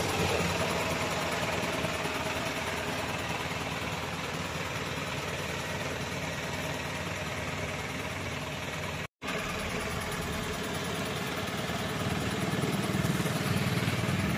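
Isuzu NPR crane truck's engine idling steadily, growing a little louder in the last few seconds, with a very brief cut in the sound about nine seconds in.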